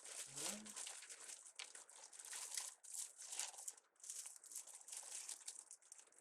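Deco mesh and ribbon crinkling and rustling in uneven bursts as they are handled and tucked into a wreath.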